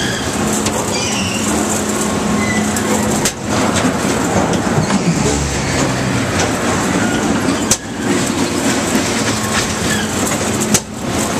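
Rock-N-Roll carnival ride running at speed, heard from inside a flipping seat tub: a loud, steady rumbling clatter of the ride's machinery, with brief dips about every four seconds.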